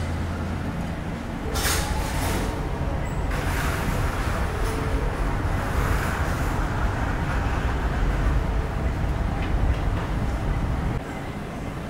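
Steady low rumble of airport terminal background noise, heard from behind the glass. There are brief hissing sounds about two seconds in and again from about three to six seconds. The level drops a little near the end.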